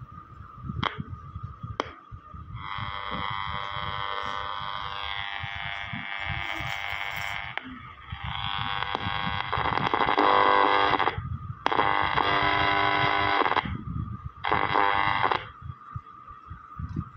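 Zenon Combat TR-089 portable two-band radio being tuned across its dial: a steady high whistle under static from its small speaker, a few clicks from the knob near the start, then four stretches of station sound that come and go abruptly as the pointer passes stations.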